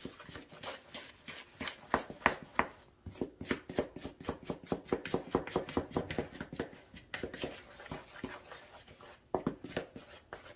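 A spatula stirring a bowl of dry flour mixture, a quick run of soft scraping taps against the sides of the mixing bowl at about four a second. The strokes thin out briefly near the end, then pick up again.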